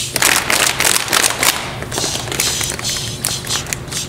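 A rapid, irregular run of sharp taps and claps, like hands clapping and tapping a rhythm, over a steady low hum.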